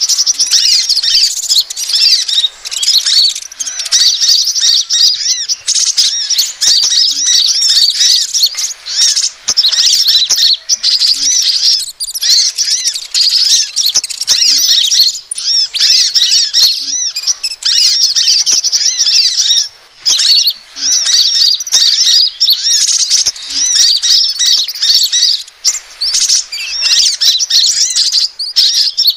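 Dense, overlapping high-pitched chirps and twitters of sunbirds (kolibri ninja and crimson sunbird), a layered bird-lure recording made to draw small birds in. The chattering runs almost without a break, dropping out briefly about two-thirds of the way through and again near the end.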